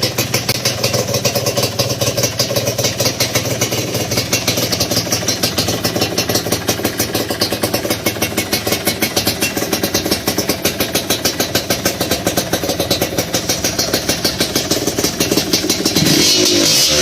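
Yamaha DT125's single-cylinder two-stroke engine idling through a stainless steel exhaust, with a fast, slightly uneven pulsing beat. Near the end the throttle is opened and the engine revs up louder.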